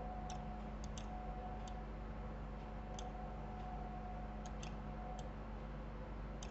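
Computer mouse left button clicking about eight times at uneven intervals, over a steady low background hum.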